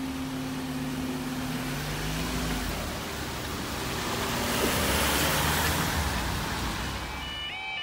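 Level crossing barriers' power unit humming steadily as the barriers rise, stopping about two and a half seconds in. Road traffic then moves off over the crossing, loudest as a vehicle passes about five seconds in.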